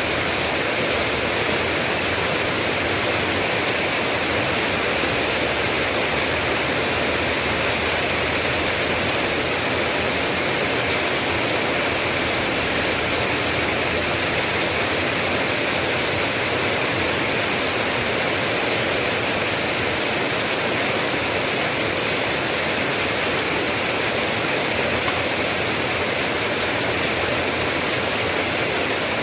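Steady, dense rain, an even hiss without pauses or separate drops standing out.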